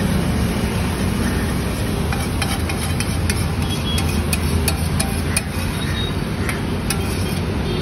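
A metal spatula scraping and clicking on a large flat iron griddle as a paste is spread across it, with sharp clinks coming thick from about two and a half seconds in. A steady low rumble runs underneath.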